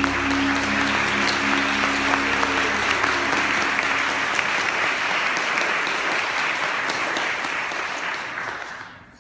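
Audience applauding, over the last held notes of the song dying away in the first few seconds; the applause fades out near the end.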